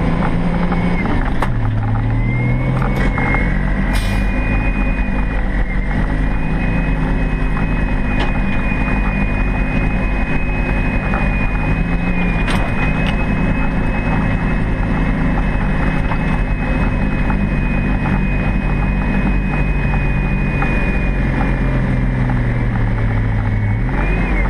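Toyota HJ61 Land Cruiser's turbo-diesel straight-six pulling hard under load, heard from inside the cab. The engine pitch drops about 1.5 seconds in, as at a gear change, then holds high with a steady high whine over it. A few sharp knocks from the body come through, and the pitch sags and climbs again near the end.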